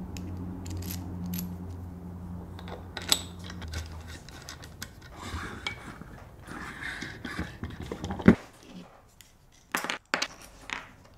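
Scattered light metallic clicks and clinks of small aluminium jig parts and screws being handled and fitted, with a hex key in a socket-head screw; one sharper click about eight seconds in. A low steady hum runs under the first four seconds.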